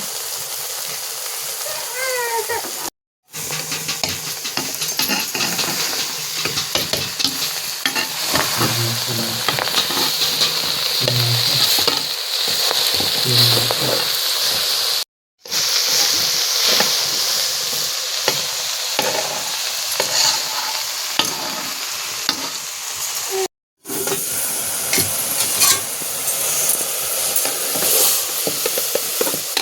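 Food sizzling as it fries in a pan, with a spoon stirring and scraping against the pan in many small clicks. The sound drops out for an instant three times.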